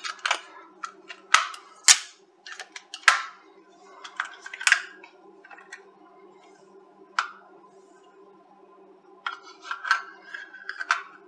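Sharp plastic clicks and taps from a Retekess V115 shortwave radio being handled, bunched near the start and again near the end, over a faint steady low hum.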